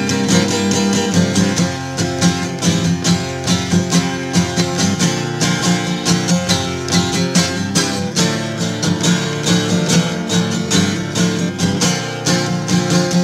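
Acoustic guitar strummed in a steady rhythm, with no singing.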